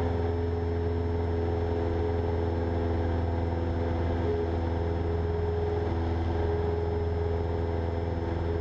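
Steady drone of a Cessna 172 Skyhawk's engine and propeller in the cabin at climb power, heard through the headset intercom.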